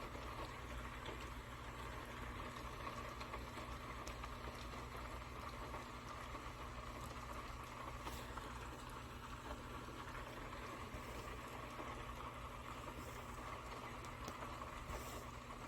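Faint steady room tone: a low electrical-sounding hum with a soft hiss, and a couple of faint ticks.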